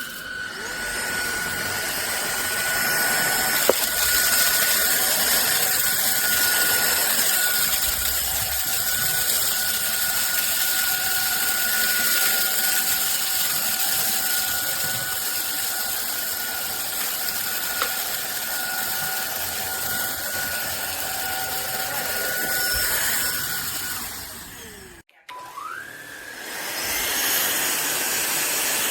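Cordless stick vacuum cleaner's motor running with a steady high whine over rushing air. It winds down and stops about 25 seconds in, then spins back up a second later.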